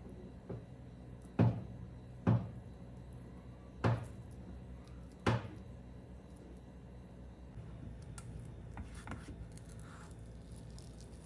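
A plastic spatula knocks four sharp times in a nonstick frying pan while spreading shredded cabbage and carrot, then makes softer scrapes and light clicks against the pan. A low steady hum runs underneath.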